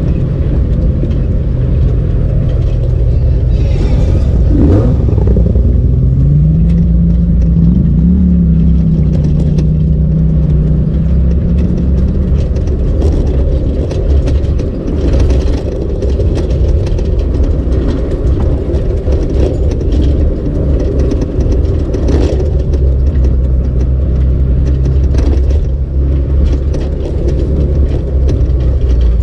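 Off-road 4x4 driving a rough dirt trail, heard from inside the cabin: a steady engine drone whose note rises about five seconds in and then settles, with scattered knocks and rattles from the tyres and body over the rocky ground.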